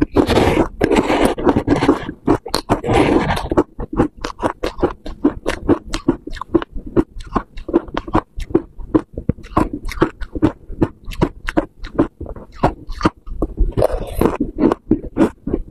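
A metal spoon scraping up freezer frost in a plastic bowl, then a long run of quick, crisp crunches as the frost is chewed close to the microphone, with another dense scraping stretch near the end.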